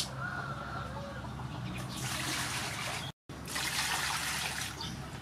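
Water poured from a plastic bowl onto a raw whole chicken in an aluminium basin, splashing. It comes in two pours of about a second each, starting about two seconds in, with a sudden break between them.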